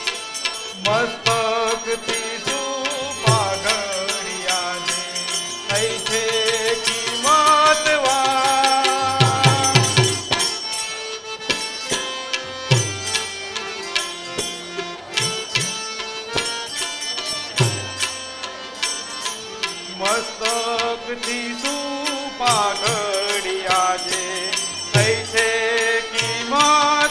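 Instrumental folk-style music: a gliding melody line over repeated drum strokes.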